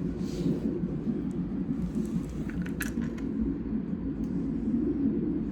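Fetal heart monitor's Doppler ultrasound sound from its loudspeaker during a non-stress test: a steady, low whooshing of the babies' heartbeats picked up by the belly transducers, with a few faint clicks in the middle.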